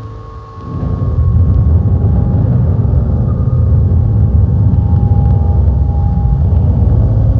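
Dark ambient drone music: a deep, dense rumble with faint sustained high tones over it. It dips briefly at the start, then swells back up and holds steady.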